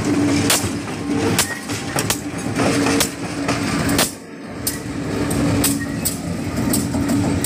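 CC 201 diesel locomotive rolling slowly over a diamond crossing and check-railed curve: its steel wheels clack and knock irregularly over the rail gaps, over the steady hum of the diesel engine.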